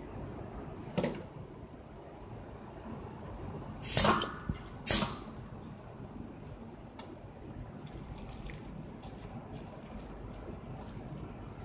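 Tooth-gel filling machine with a stainless-steel nozzle dispensing a dose into a syringe: two short, sharp spurts about a second apart, with a small click between them and a lighter knock a few seconds earlier, over a steady background hum.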